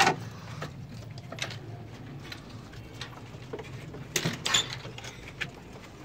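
Irregular knocks, clicks and rustles of movement and handling in a pigeon loft over a low steady hum, with a sharp knock at the start and a louder cluster about four seconds in.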